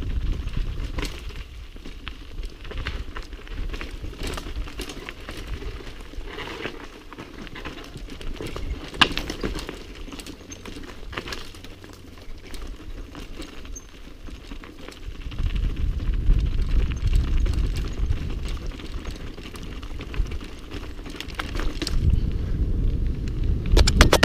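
Mountain bike riding downhill over a rocky, gravelly dirt trail, from a helmet-mounted camera: tyres crunching over stones with frequent rattles and clicks from the bike, and a sharp knock about nine seconds in. A low wind rumble on the microphone runs under it and grows louder in the second half.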